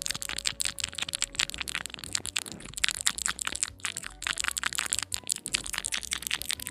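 ASMR mouth sounds close to the microphone: a fast, unbroken run of wet clicks and pops, several every second.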